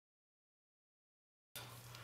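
Dead digital silence, then faint room tone with a steady low hum coming back about one and a half seconds in.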